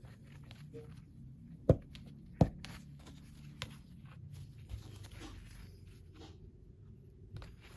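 Light clicks and taps of metal and plastic parts being handled, with two sharp knocks less than a second apart about two seconds in, over a low steady hum. These are the sounds of fitting new bearings into an LG dryer's drum rollers.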